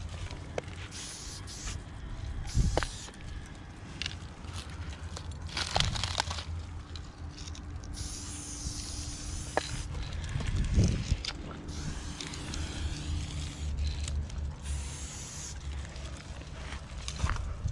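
Aerosol spray paint can hissing in short bursts of up to about two seconds while a black outline line is sprayed onto a wall; the longest burst comes about eight seconds in. A low rumble and a few sharp clicks sit underneath.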